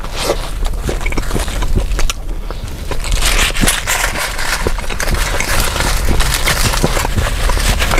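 Close-miked eating of a toasted grilled cheese sandwich: a bite, then chewing with crisp crunching and crackling mouth sounds that grow denser and louder from about three seconds in.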